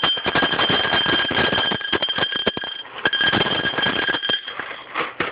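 Serving utensil clattering and scraping as cooked pasta is layered into a crock pot, alongside a steady high electronic-sounding tone. The tone holds for about three seconds, breaks briefly, then sounds again for over a second.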